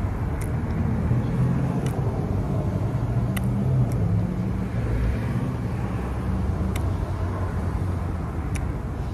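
Steady low rumble of an idling motor vehicle, with a few faint, sharp mouth clicks from chewing.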